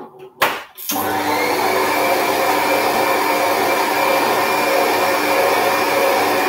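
Electric stand mixer switching on about a second in after a couple of clicks, then running steadily with a motor whine as its flat beater mixes thick cake batter.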